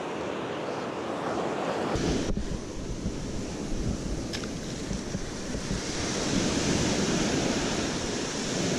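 Small shore-break waves washing up the sand, the wash swelling louder about six seconds in, with wind rumbling on the microphone from about two seconds in.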